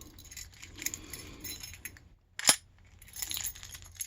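Keys and euro-profile lock cylinders being handled: small metal clicks and clinks, with one sharp click about two and a half seconds in.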